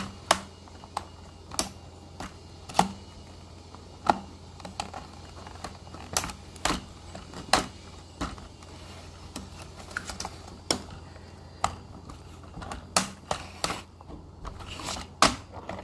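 Irregular clicks and knocks of the plastic parts of a Hot Wheels Stunt and Splash Car Wash playset being handled and fitted back together while it is fixed.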